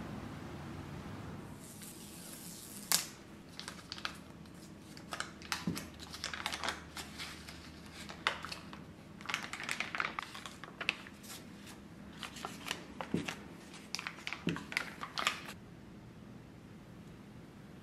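Foil-lined paper butter wrapper crinkling and crackling as hands unfold it from the block, in a long run of rustles with sharper crackles, stopping about two seconds before the end.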